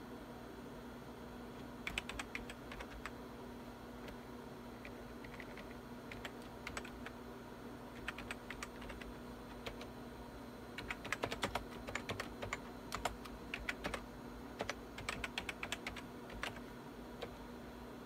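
Typing on a computer keyboard: several short runs of keystrokes with pauses between, the busiest stretch in the second half. A steady low hum runs underneath.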